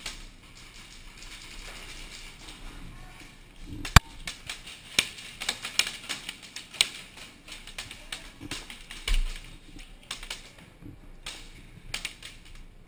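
Airsoft gun firing: a sharp crack about four seconds in, then an irregular run of sharp snaps for a few seconds, with a few more near the end.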